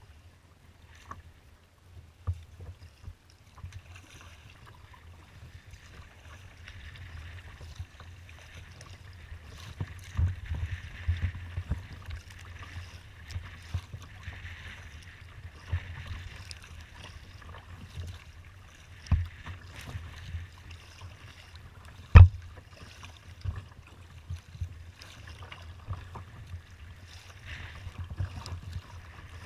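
Choppy water slapping and splashing against a kayak hull under way, over a low, uneven rumble. Two sharp knocks come in the second half, the second the loudest.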